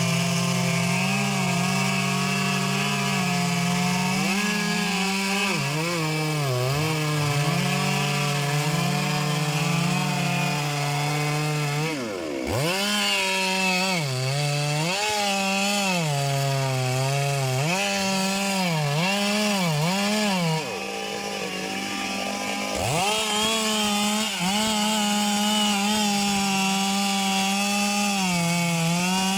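Chainsaw at high revs cutting into a thick anjili (wild jack) trunk, its engine pitch sagging again and again under load and picking back up. About two-thirds of the way through it falls quieter and lower for a couple of seconds, then revs up and cuts on.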